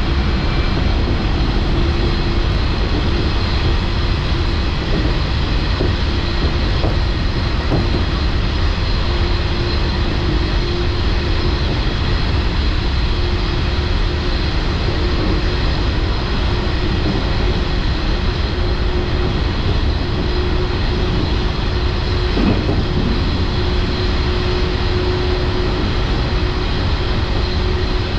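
JNR 113 series electric train running along the line, heard from just behind the driver's cab: a steady hum from the traction motors and gearing over the rumble of wheels on rail.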